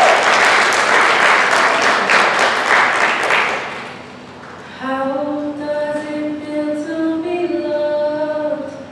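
Audience applause and cheering that dies away after about four seconds. About a second later a slow melody in long, steady held notes begins and stops just before the end.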